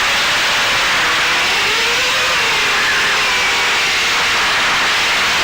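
FPV quadcopter's brushless motors and propellers whining, the pitch wavering up and down with the throttle, over a steady rush of wind noise on the onboard camera's microphone.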